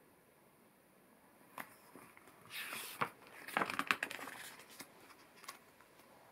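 A page of a paperback picture book turned by hand: a short papery rustle and crinkle with a few light ticks, starting with a tick about one and a half seconds in and loudest around three to four seconds in.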